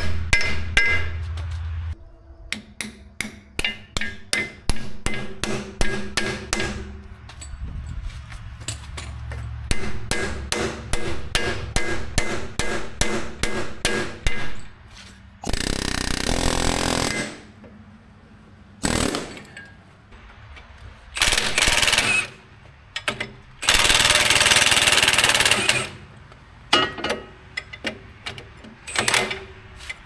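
Hand hammer striking steel trencher parts in quick series, about three blows a second, with pauses between runs. In the second half, several bursts of rushing noise lasting one to two seconds break in among the blows.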